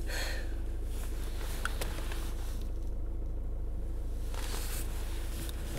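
Steady low hum of a car cabin with the engine idling, with a few faint rustles and ticks of clothing and movement.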